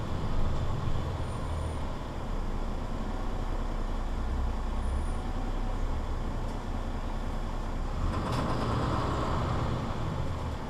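Mercedes-Benz Citaro C2 city bus with a Voith automatic gearbox running: a steady diesel engine and road noise, with a brighter rush of noise about eight seconds in.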